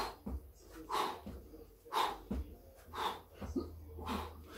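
A man exhaling hard in sharp breaths about once a second while doing push-ups in a set of Navy SEAL burpees, with short low thuds between the breaths.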